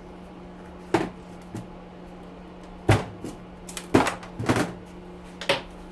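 Scattered knocks and clacks of hard objects being handled or dropped, about seven or eight separate strikes, over a steady low hum.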